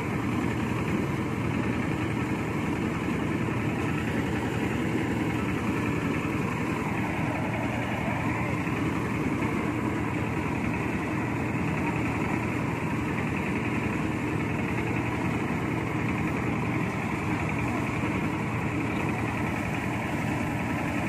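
Mobile rice thresher running steadily as rice stalks are fed into it, a continuous engine drone with a fast even pulse.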